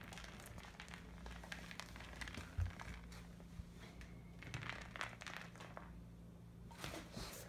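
Scattered light clicks and crinkly rustling as a puppy handles a hard red plastic ball toy on a rug and concrete floor, with one dull thump about two and a half seconds in, over a faint steady hum.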